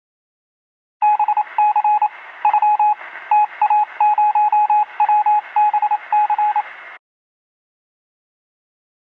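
A single-pitched electronic beep keyed on and off in short and long pulses, like Morse code, over a hissing, narrow-band radio-like background. It starts about a second in and stops abruptly about two seconds before the end.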